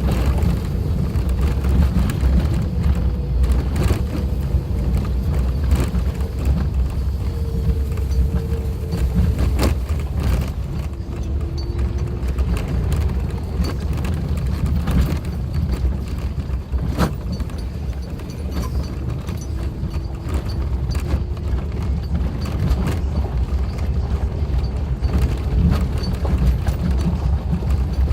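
Suzuki Jimny driving on an unpaved forest road: a steady low rumble of engine and tyres, with a faint wavering whine and scattered sharp clicks and knocks, the strongest about 17 seconds in.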